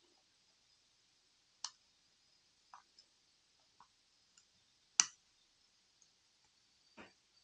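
A handful of small, sharp clicks and taps from phone parts and tools being handled and pressed together during reassembly of a Pixel 6, five in all, the loudest about five seconds in.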